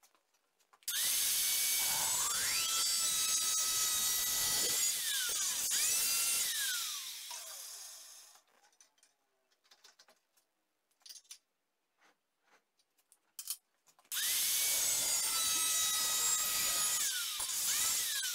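Angle grinder with a thin cut-off disc cutting a steel tube held in a vise, in two runs of several seconds. Each run starts with the motor's whine rising, carries a harsh hiss of disc on steel, and ends with the whine falling as the disc winds down; a few light taps fall between them.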